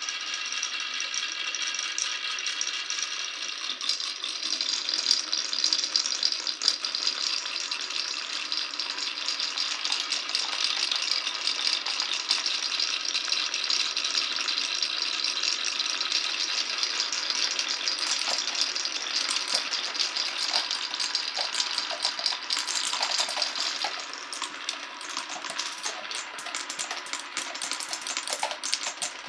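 Many marbles rolling and clattering through a wooden marble run, a dense continuous rattle; in the last few seconds single clacks stand out more.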